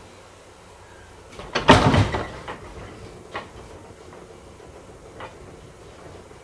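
211 series electric train starting off from a stop: a loud clunking burst of under a second about a second and a half in as the train gets under way, then a few single clicks as the wheels begin rolling over the rail joints.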